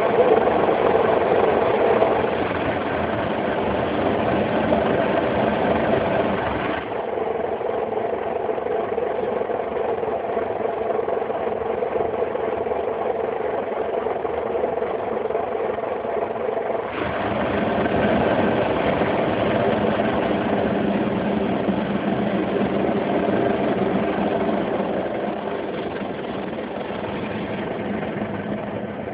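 Automatic car wash heard from inside the car: water spray drumming on the roof and rear window over a steady machinery hum. It eases about seven seconds in, swells again around seventeen seconds, and fades near the end.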